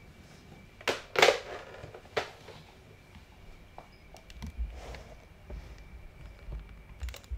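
Handling noises in a small room: a few sharp knocks and a brief scrape about a second in, then soft low bumps and faint clicks as toys and the camera are moved about.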